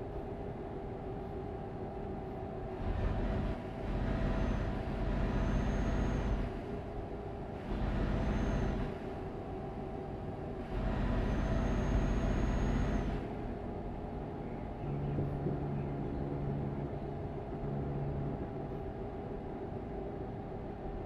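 A road vehicle running while being driven: a steady hum with three louder swells of rushing road and engine noise, the longest about 11 to 13 seconds in, each carrying a faint high whistle.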